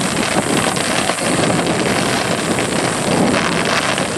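Aerial fireworks bursting in a rapid barrage, many shells overlapping into a continuous dense run of bangs and crackling.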